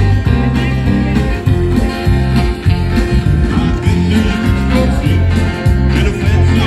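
Live music from a solo performer: acoustic guitar played through a PA speaker, with singing and a steady run of strong bass notes.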